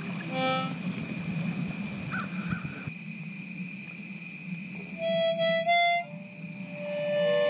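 Harmonica playing: a few short notes about five seconds in, then one long held note near the end.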